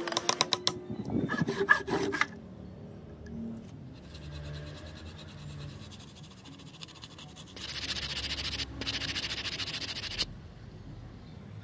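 A hammer drives a wooden wedge into the eye of an axe head: a quick run of light taps, then a few heavier blows with a ringing note. After that, sandpaper rubs back and forth across the end grain of the wedged handle top, faint at first and louder from about halfway, with a short break.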